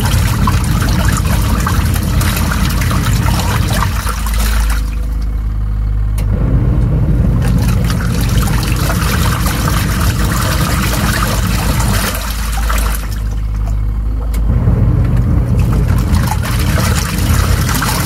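Della portable twin-tub washing machine agitating a load of clothes: a motor hum under churning, sloshing soapy water. The churning eases off twice, about five and thirteen seconds in, as the agitator pauses between strokes.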